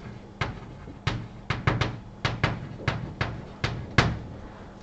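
Chalk writing on a blackboard: about a dozen sharp, irregular taps and clicks of the chalk against the board, over a faint steady low hum.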